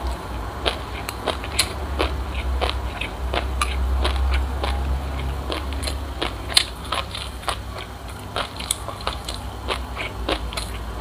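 Close-miked chewing of a mouthful of crunchy black and white sesame seeds: many small, sharp, irregular crunches and crackles, over a steady low hum.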